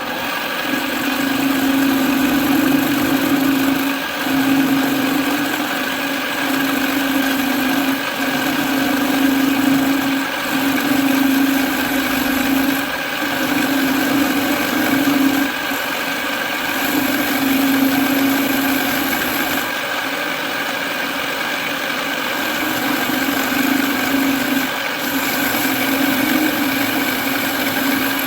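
A machine's motor running steadily, with a strong hum that swells and dips about every two seconds over a wide hiss.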